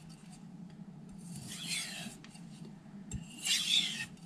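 Carbon-steel knife blade scraping across an 8000-grit Naniwa Snow White whetstone in alternating light strokes, two clear hissing strokes about two seconds apart. These are the final edge-refining passes that work the burr back and forth.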